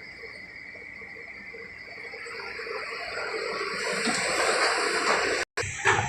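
Excavator loading a dump truck: a rushing noise that swells over a few seconds, breaks off suddenly, then gives one short burst near the end.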